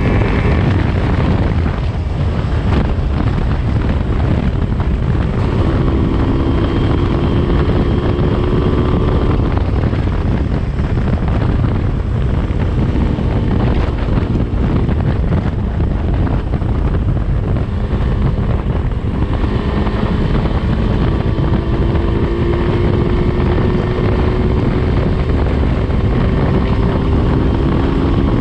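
Yamaha RD350's two-stroke parallel-twin engine running at road speed through DG expansion chambers, with heavy wind rumble on the microphone. The engine note climbs slowly twice as the bike pulls, about a third of the way in and again in the last part.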